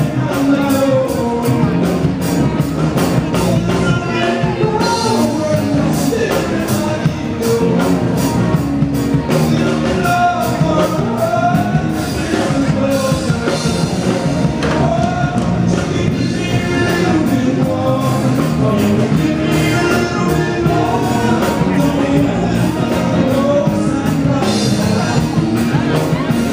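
Rock music with a singer and a steady drum beat, played loud through stage loudspeakers.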